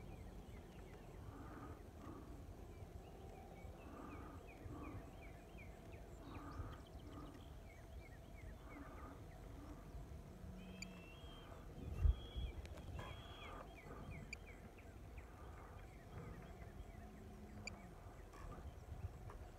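Faint open-field ambience: many short, rapidly repeated animal chirps with softer calls every second or so, a faint steady hum and low rumble, broken by a single sharp thump about twelve seconds in.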